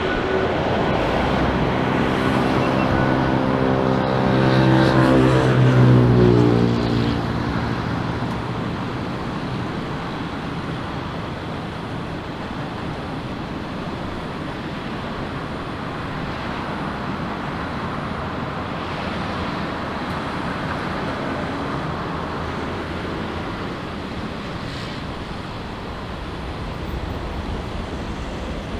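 Jet airliner passing close by the runway side, its engine hum sweeping down in pitch and loudest about six seconds in, then a steady engine noise that slowly fades as it moves away.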